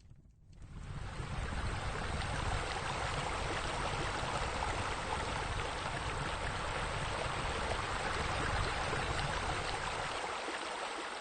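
Water from a natural rock waterfall splashing steadily into a swimming pool. A low rumble underneath drops away near the end.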